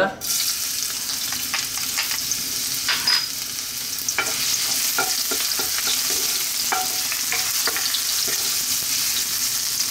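Julienned ginger sizzling in hot cooking oil in a wok, the sizzle starting abruptly as the ginger goes in and then holding steady. Scattered taps and scrapes of a spatula stirring it against the pan.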